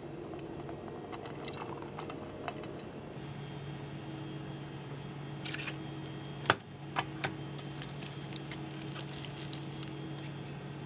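Steady hum of the space station's cabin ventilation, with a few clicks and crinkles from food packaging being handled. The loudest sound is a sharp click about six and a half seconds in, followed quickly by two smaller ones.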